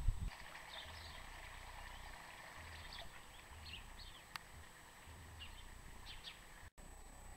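Faint chirping of small birds: a string of short, thin, high chirps, with a low wind rumble on the microphone and a single sharp click about halfway through.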